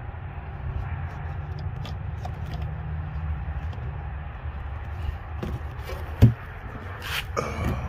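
Motor oil poured from a plastic jug through a funnel into an engine's oil filler, over a steady low rumble, with small handling clicks and one loud knock about six seconds in.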